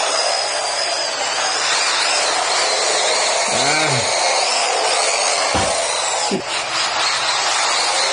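Small electric motors of 1:18-scale RC drift cars running, a high whine rising and falling with the throttle over a steady hiss. A few short voice sounds come about halfway through.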